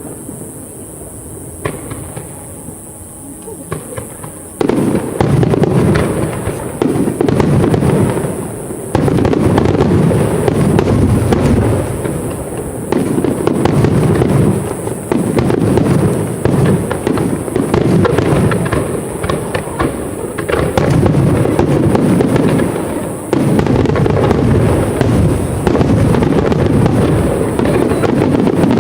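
Aerial fireworks display. The show is quieter at first, then a dense barrage of bursts starts suddenly about four and a half seconds in and keeps booming and crackling, easing briefly a few times.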